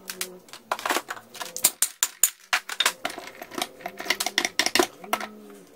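Quick, uneven metallic clicks and clanks as a jet ski engine's cylinder is worked loose and lifted off its crankcase.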